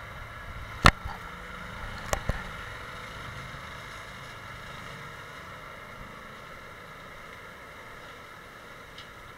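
Tractor-driven forestry mulcher running steadily while it shreds a small tree: a steady engine-and-drum drone with a steady high tone. Three sharp cracks cut through, one loud one about a second in and two close together just after two seconds.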